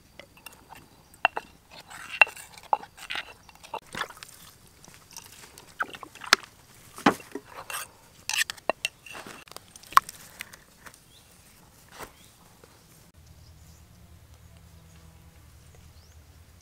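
Stone mortar and pestle in use for chili sauce: irregular sharp knocks and scrapes of the pestle and a spoon against the stone. They stop about twelve seconds in, leaving a faint low hum.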